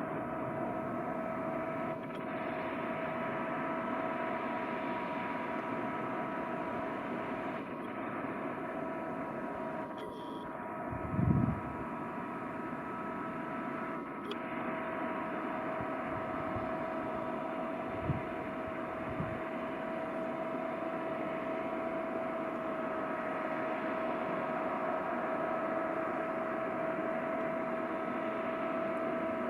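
Harvest machinery running steadily, a constant engine noise with a steady high whine over it. A short low thud partway through is the loudest moment, and two faint knocks follow a few seconds later.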